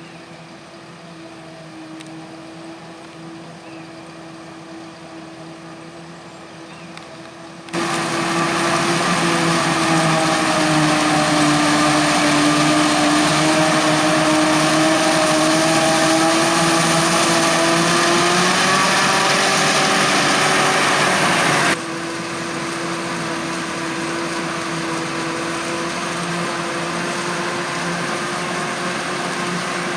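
Heavy farm machinery engines from a maize silage harvest, a forage harvester and carting tractors, running steadily. About a third of the way in, a much louder engine sound starts abruptly, its pitch dipping and rising. It stops suddenly a few seconds past the middle, leaving the quieter steady engine hum.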